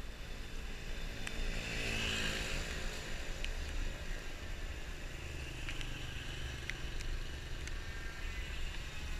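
A motor vehicle's engine passing close by, swelling and shifting in pitch about two seconds in, then a lower steady engine hum over a low rumble.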